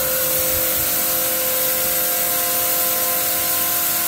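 APR AP81 electric pressure washer (jet cleaner) spraying at maximum pressure: a steady hiss of the water jet over the motor's constant hum.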